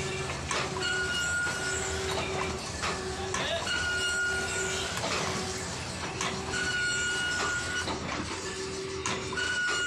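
Metal shaper running through its cutting strokes on a bar clamped in the vise, repeating about every three seconds. Each cycle brings a high ringing tone for about half a second and a sharp knock, over a steady machine hum.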